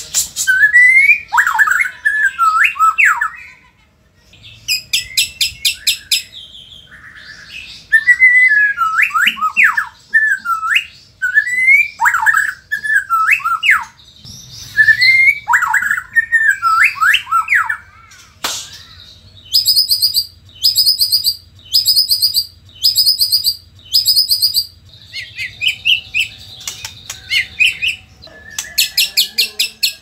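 White-rumped shama singing: loud whistled phrases that sweep up and down, alternating with bursts of rapid, high, ticking chatter. In the second half comes a run of about six short chatter bursts, roughly a second apart.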